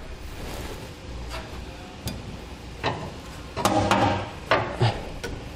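Steel mounting handle of a B&W underbed gooseneck hitch being slid over a pickup's frame rail: a few light metallic clicks and knocks, spaced out, over a steady low hum, louder about two-thirds of the way through.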